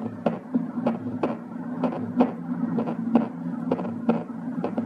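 Recorded heart sounds of aortic stenosis: sharp ejection clicks over a continuous low hum, with the strongest beats about once a second. It is the example of a forceful ejection sound with a weak aortic closure (soft second heart sound).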